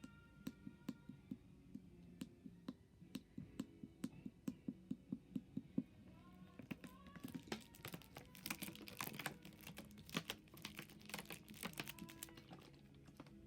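A run of light, quick clicks at about four a second, becoming a dense, louder clatter of clicks in the second half, over a low steady hum with a few short chirping tones.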